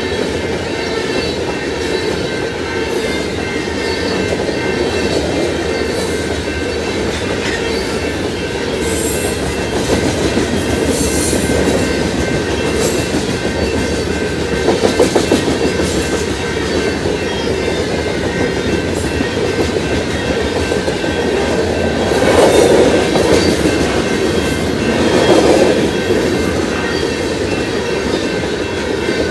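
Freight train of covered hopper cars rolling past, steel wheels clacking over the rail joints in a steady rumble, with a few louder surges as cars go by.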